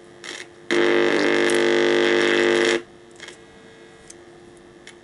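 Loud steady buzz from an old CRT television's speaker as an RCA audio plug is pushed into its newly fitted audio/video input. The buzz starts suddenly less than a second in and cuts off sharply about two seconds later.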